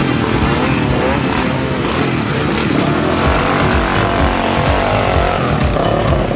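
ATV engines running and revving, mixed with a music track.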